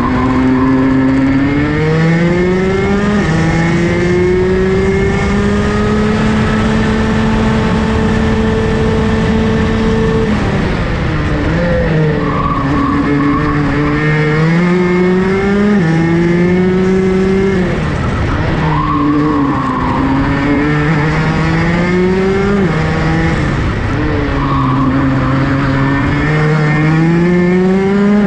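Rotax DD2 kart's 125 cc two-stroke engine heard onboard, its pitch climbing as it accelerates, holding high for several seconds on a straight, then dropping off into corners and climbing again, several times over. A few short squeals come through in the corners.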